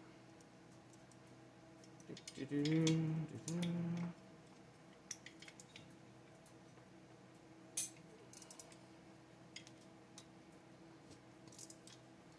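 Light clicks and taps of hand tools and small metal parts while a McCulloch 10-10 chainsaw is taken apart, with two short pitched tones about two to four seconds in.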